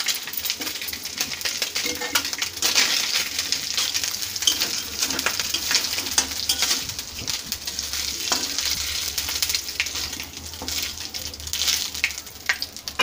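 Small fish sizzling in hot mustard oil in an iron kadai, with a metal spatula scraping and clicking against the pan as the fried fish are lifted out. The oil keeps sizzling as the pan empties.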